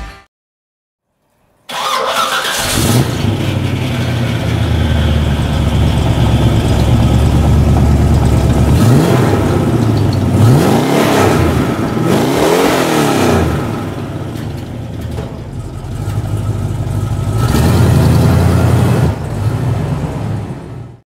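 1970 Chevrolet El Camino SS 454's big-block V8 starting up about two seconds in with a short flare, then running loud and steady through its exhaust. It is revved in several quick blips that rise and fall in pitch, and near the end it drives off.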